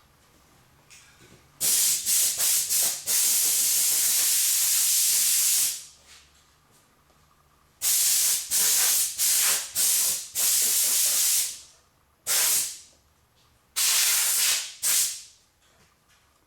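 Repeated bursts of hissing pressurised spray. A few short puffs lead into a long blast of about four seconds, then a cluster of several bursts, then three short ones.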